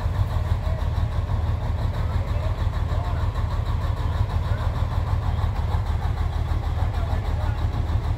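Diesel engine of a tracked armored recovery vehicle running steadily, a low rumble, as its A-frame boom holds a tank's detached outer track unit on the hoist.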